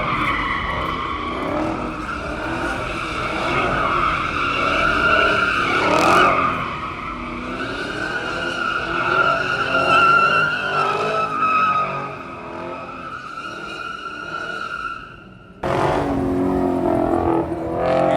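Car drifting, its tires squealing in a steady screech while the engine revs up and down. About fifteen seconds in the sound fades briefly, then comes back abruptly with more squealing and revving.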